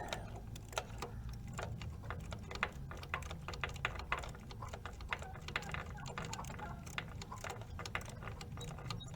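Socket ratchet clicking in short runs of ticks while a 12 mm starter bolt is worked loose.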